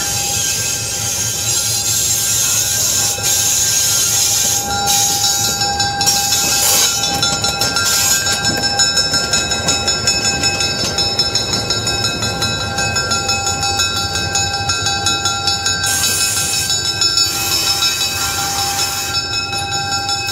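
EMD SW9 switcher locomotive's V12 diesel engine running as the locomotive rolls past close by, with a steady high whine over the engine noise.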